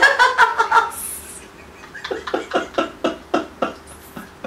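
A woman laughing hard: a loud peal at first, then a run of short gasping bursts, about three or four a second, growing fainter.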